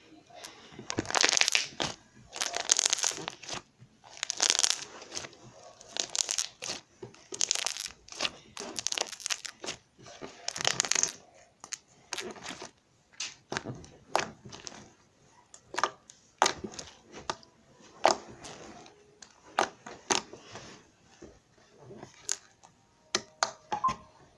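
Homemade slime with small beads mixed in being squeezed and worked by hand for ASMR: crunchy, crackling squishes for about the first eleven seconds, then mostly separate sharp sticky pops and clicks.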